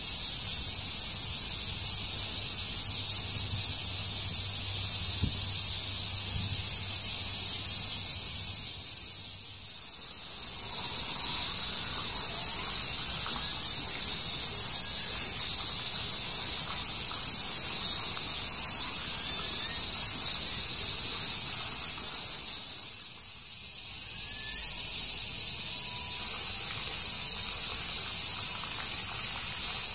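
Steady, high-pitched chorus of summer insects that dips briefly twice.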